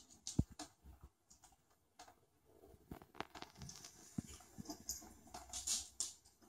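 A lop rabbit hopping about on a hard wooden floor: faint, irregular soft thumps of its paws with light clicks and scrabbles of its claws.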